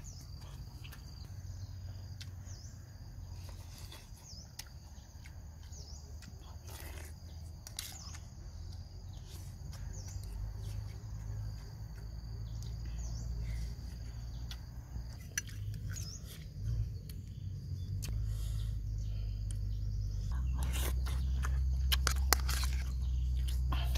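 A person eating soup: a metal spoon clicking now and then against a ceramic bowl, with soft chewing. Under it runs a low rumble that grows louder over the last few seconds, with faint insect and bird chirps.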